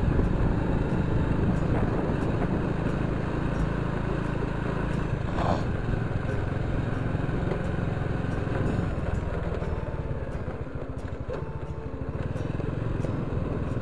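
Motorcycle engine running on the move, with steady road noise; the level eases a little about ten seconds in.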